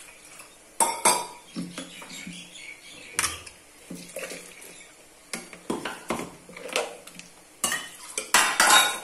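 A stainless-steel spoon scraping and clinking against a steel mixer-grinder jar and the rim of a pressure cooker while thick ground paste is scooped out and knocked into the pot. The clinks and scrapes come in an uneven run, loudest near the end.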